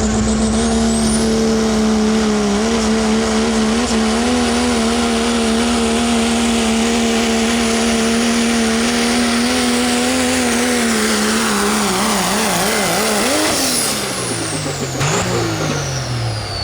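A competition pulling vehicle's engine running flat out at high revs down the track, its note held steady for about eleven seconds. Then the revs waver and drop, and the engine winds down with a falling whine near the end.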